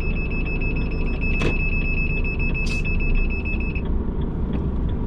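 Inside a Renault lorry cab, the diesel engine runs with a low rumble. Over it a steady, high electronic warning tone holds one pitch and stops just under four seconds in. A faint regular ticking runs underneath, a sharp knock comes about a second and a half in, and a brief hiss follows a second later.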